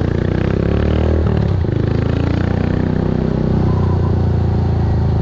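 Motorcycle engine running under way: its pitch climbs, drops sharply about a second and a half in, then holds steady.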